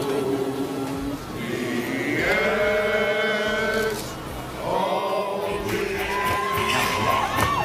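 A choir singing long held chords. The voices slide up to a new chord about two seconds in and settle on another one about five seconds in.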